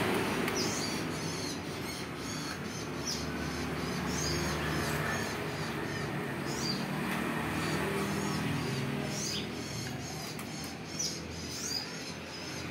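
Small birds chirping, many short high calls scattered throughout, over a steady low background hum.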